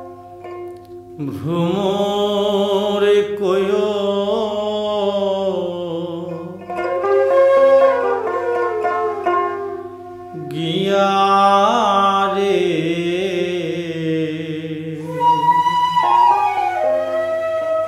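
Bengali Baul folk music: two long, gliding melodic phrases with vibrato over a steady drone and plucked string notes.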